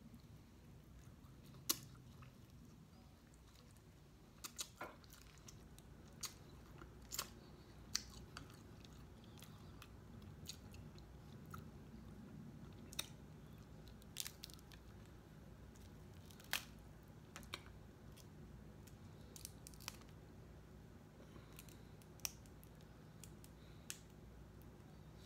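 Close-up eating sounds: chewing, with scattered sharp clicks and cracks as snow crab legs are broken apart and picked by hand. A faint low hum sits under it.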